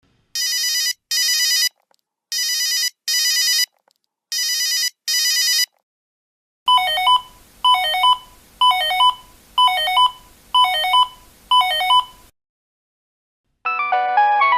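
Cellphone ringtones played one after another: first an electronic double ring, three pairs of short high trills; then, after a short pause, six short beeps about one a second. Near the end a melodic ringtone begins.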